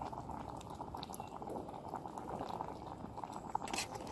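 Food simmering in a small camp pot on the heat: steady bubbling with a dense crackle of tiny pops. A single light click comes near the end.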